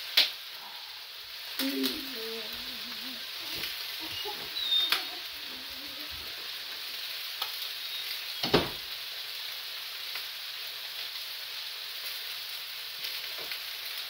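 Sausages and fried potatoes with onion sizzling steadily in frying pans, with a few sharp clicks and knocks. The loudest come just after the start and at about eight and a half seconds.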